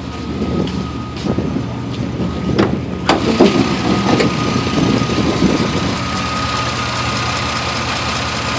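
Chevrolet Silverado Vortec engine idling with a steady, repeating tick from the top end, which the owner takes for lifter noise but cannot pin down. A thin steady whine runs under the idle, and a couple of sharper clicks come about three seconds in.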